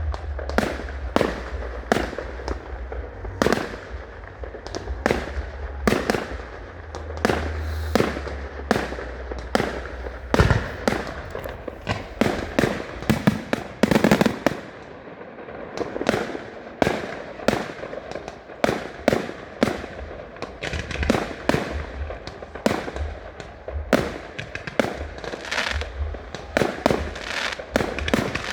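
A fireworks display going off: a dense, irregular string of sharp bangs, about two a second. A low rumble sits under the first ten seconds or so.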